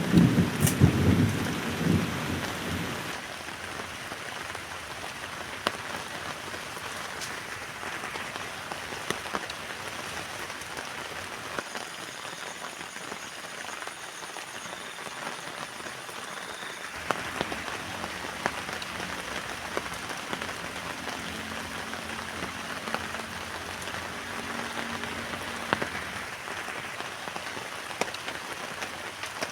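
Steady rain falling on a tent, with scattered louder drops ticking on the fabric. A low rumble of thunder fades out in the first few seconds.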